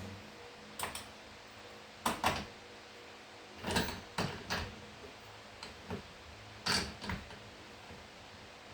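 Metal mounting hardware (bolts, washers and lock nuts) for a golf cart seat belt being handled and fitted: a string of irregular short clicks and clinks, some in quick pairs.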